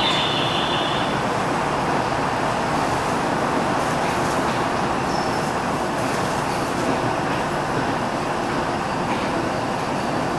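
Steady, even rushing background noise with no distinct events, with a high steady tone in the first second.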